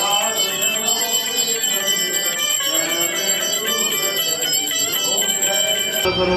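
A bell rung rapidly and continuously during an aarti, its high ringing tones steady under voices singing. The ringing cuts off abruptly near the end.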